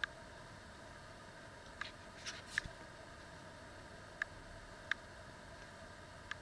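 Sheets of a pad of patterned craft paper being handled and turned by hand: a few faint, short clicks and one brief rustle over low room hiss.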